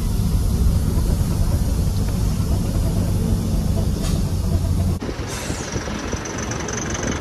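Truck engine running with a low road rumble while driving. About five seconds in, the sound changes abruptly to a quieter rattling noise with a thin, steady high whine.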